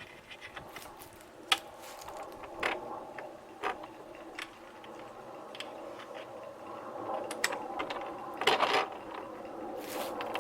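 Small metal hardware clicking, knocking and scraping as bolts, spacers, washers and wing nuts are fitted to a canoe seat's mounts: scattered sharp clicks, with a louder scraping rattle near the end.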